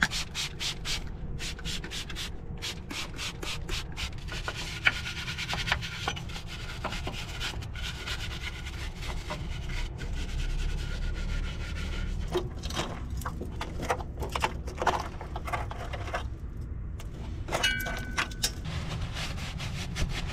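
A shop towel rubbing and wiping grime off a car's front suspension strut. It starts with a run of short quick strokes, which may be squirts from a trigger spray bottle of cleaner. The scrubbing goes on steadily after that, with another cluster of short strokes later on.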